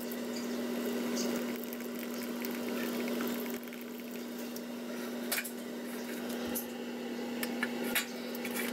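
Water boiling in a stockpot, a steady bubbling hiss, with a steady low hum underneath and a few short sharp clicks or splashes as the blanched duck is handled over the pot.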